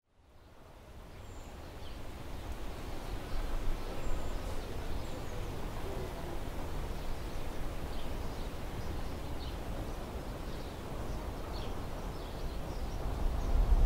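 Outdoor countryside ambience: a low rumble of wind with faint, scattered birdsong chirps, fading in from silence over the first couple of seconds and swelling slightly near the end.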